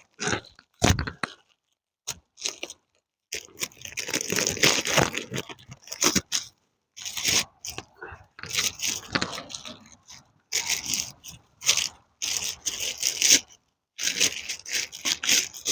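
Packaging being opened and pulled off a boxed rifle: irregular scraping, rustling and crunching of cardboard and wrapping, in short bursts with brief pauses between.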